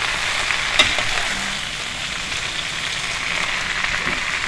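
Leafy greens sizzling steadily as they stir-fry in an aluminium wok, with a metal spatula turning them and one sharp clink of the spatula on the pan about a second in.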